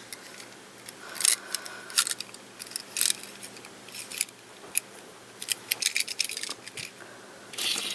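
Die-cast toy train engines being handled and set down, a scatter of small sharp clicks and clinks about once a second, thicker near the end.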